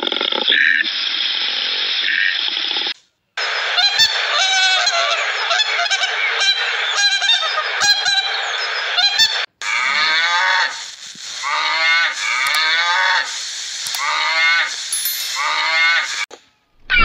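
A flock of waterfowl honking repeatedly, then, after a sudden cut, a run of short calls from cattle, each falling in pitch, about one a second. The first few seconds hold a steady hiss with a few short calls.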